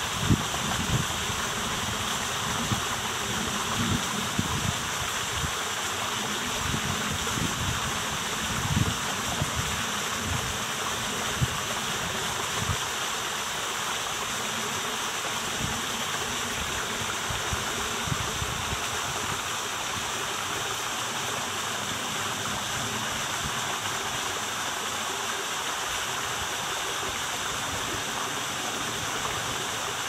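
Steady rushing of a mountain stream flowing through forest. For roughly the first dozen seconds, irregular low buffets of wind on the microphone come and go, then settle.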